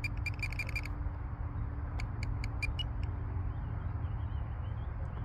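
Low wind rumble on the microphone with a faint steady hum, and two quick runs of short, high chirps: one in the first second, another from about two to three seconds in.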